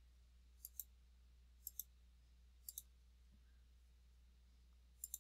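Faint computer mouse clicks: three pairs of quick clicks about a second apart, then another pair near the end, over a quiet room hum.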